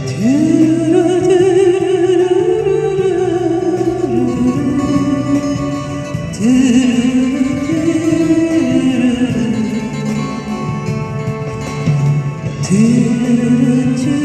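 Music: a slow ballad with acoustic guitar accompaniment and a lead melody in long held, wavering notes, in three phrases that each slide up into their first note.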